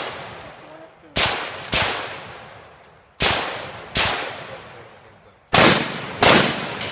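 Six gunshots fired in three quick pairs, each pair a little under a second apart, with the pairs about two seconds apart. Each shot is a sharp crack that dies away over about a second.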